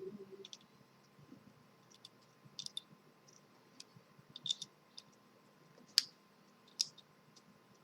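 Small screwdriver tightening the screw posts of a speaker-cable connector: scattered light clicks and ticks, the sharpest about six seconds in.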